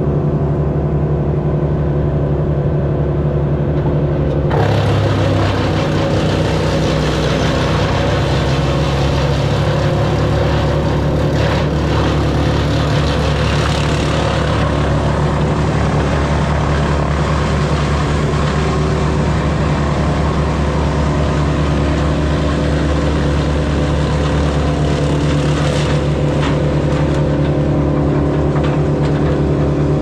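An engine running steadily under load. About four and a half seconds in, a harsher noise joins it and carries on.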